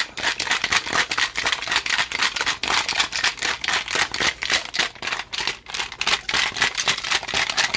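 Ice cubes rattling in a cocktail shaker as a gin tiki drink is shaken rapidly and steadily with ice: a fast, even clatter of knocks.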